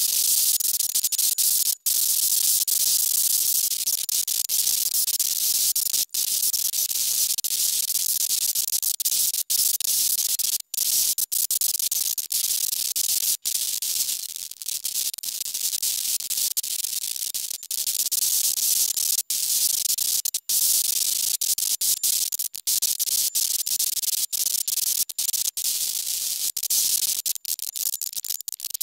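Small handheld motor grinder with an abrasive disc grinding a steel blade: a steady high-pitched hiss of metal on the disc, broken by many brief dropouts.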